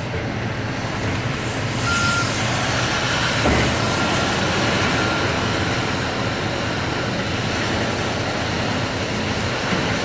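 Diesel engine of heavy demolition machinery running steadily, with a few short backup-alarm beeps and a single knock midway.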